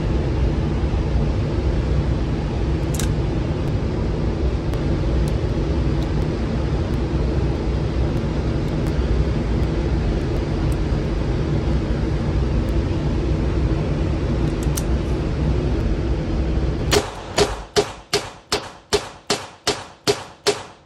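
A steady low hum with a couple of faint clicks, then, in the last four seconds, a Smith & Wesson 617 .22 LR revolver fired about ten times in quick, even succession, roughly a shot every 0.4 s, emptying its ten-round cylinder.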